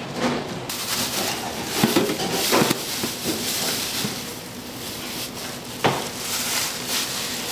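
Plastic glove and plastic bag crinkling and rustling as a gloved hand gathers shredded egg crepe from a stainless steel tray, with a few sharp clicks.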